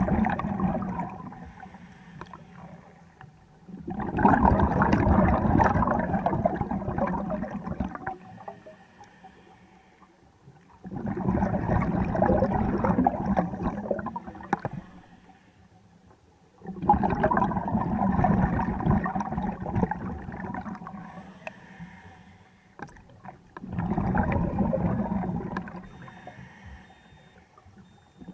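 Scuba regulator breathing underwater: a rush of bubbling exhaust on each breath out, about every six seconds, with quieter gaps for the breath in.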